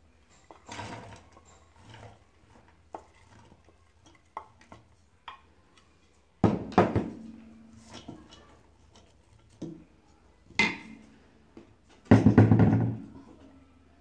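Chopped red onion going into a granite-coated cooking pot and a wooden spoon knocking and scraping against the pot as the onion is spread. It comes as a string of separate knocks and rustles, with the longest and loudest clatter near the end.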